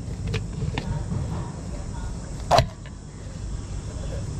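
Rubber steering rack boot being gripped and slid along the tie rod: a low rubbing and scuffing with a few small clicks, and one sharp knock about two and a half seconds in.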